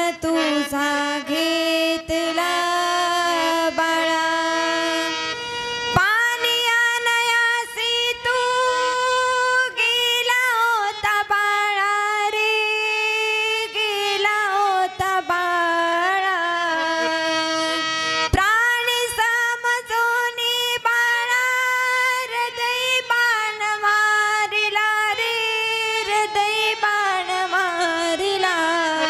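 A woman singing a slow Marathi devotional lament in kirtan style, holding long notes that bend and slide, with instruments playing behind her. A new phrase begins about six seconds in and again near eighteen seconds.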